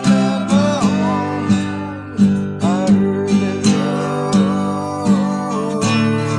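Acoustic guitar strumming a steady rhythm, with a melody line over it that slides and bends in pitch.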